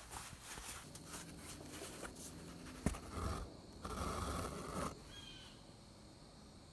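Hand-sewing heavy canvas: clicks and rustling as the needle and fabric are handled, then artificial sinew pulled through the canvas in two short scraping draws around the middle.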